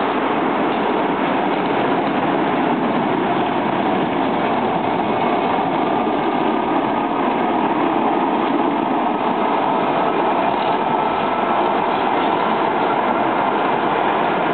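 Old city tram running along street tracks amid steady traffic noise, with a faint thin whine coming in from about halfway through.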